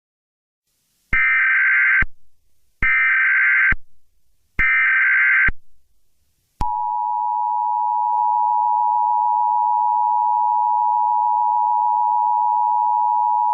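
Emergency Alert System SAME header: three short, shrill data bursts of about a second each, starting about a second in. About six and a half seconds in, the steady two-tone EAS attention signal (853 and 960 Hz) begins and holds, marking the start of an emergency alert broadcast.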